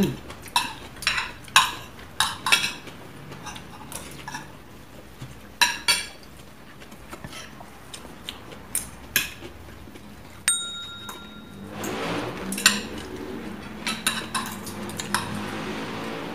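Metal spoons and forks clinking and scraping against ceramic plates and serving dishes as two people eat. A short, high, steady ring lasting about a second comes in abruptly just past the middle.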